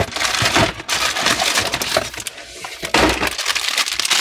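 Clear plastic bag wrapped around a new motherboard crinkling and rustling as it is handled, a run of crackles with a louder burst about three seconds in.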